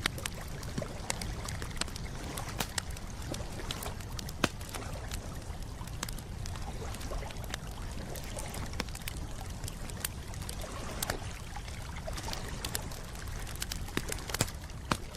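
Wood campfire crackling: irregular sharp pops and snaps, a few much louder, over a steady low rush of the burning fire.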